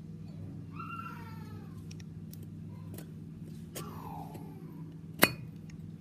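A cat meowing twice, short falling calls about a second in and near four seconds in, over a steady low hum. About five seconds in comes a single sharp metallic clink from the Zippo lighter's case and insert being handled.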